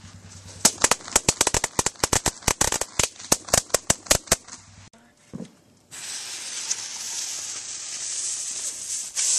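A string of firecrackers going off: a rapid, irregular run of about thirty sharp pops lasting about four seconds. A steady hiss follows from a little past halfway.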